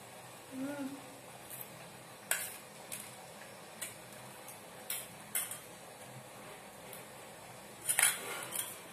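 Metal spoon clinking against a steel plate of puffed-rice snack: a few sharp, separate clinks spread through, the loudest a clatter near the end. A short hum of a voice about a second in.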